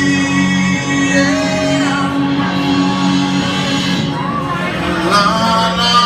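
Live rock band playing: a singer over electric guitar, bass guitar and drums.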